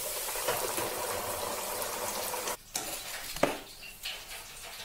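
Breaded chicken tenders in a wire basket dropped into the hot oil of an electric deep fryer, the oil sizzling and bubbling hard. The sizzle cuts off suddenly after about two and a half seconds, and a single sharp knock follows.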